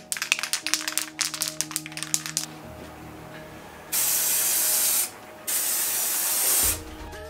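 Aerosol spray can rattled quickly for a couple of seconds, then sprayed in two steady hisses of about a second each, with a short pause between them.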